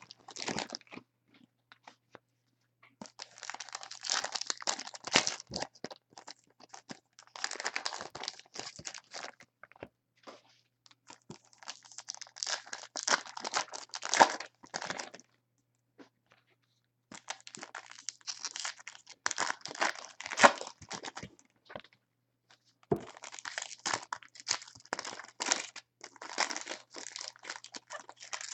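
Sports card pack wrappers being torn open and crinkled by hand, in about five bursts of crackling with short pauses between them.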